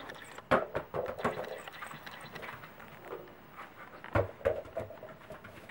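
A Pembroke Welsh corgi swinging and knocking a yellow toy about in its mouth: irregular knocks and clatter. The two loudest knocks come about half a second in and about four seconds in.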